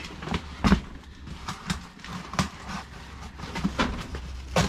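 Cardboard boxes and the things in them being shifted and knocked about by hand, an irregular run of knocks, thuds and rustles, with the loudest knocks about a second in and near the end.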